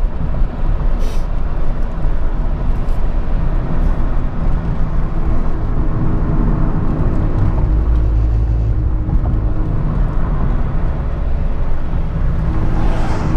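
Car driving at speed, heard from inside the cabin: a steady low rumble of engine and tyres on the road. An oncoming car swishes past near the end.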